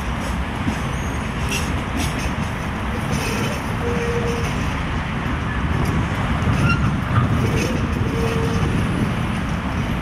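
An articulated electric tram rolling slowly past on its rails: a steady low rumble of wheels and running gear, with a few short whining notes, growing a little louder about two-thirds of the way through.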